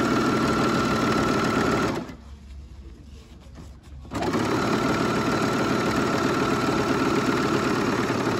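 Merrylock MK4075 overlock/coverstitch machine sewing a coverstitch seam through fabric, its motor and needle mechanism running at a steady speed with a constant high tone. It stops about two seconds in and starts again about two seconds later.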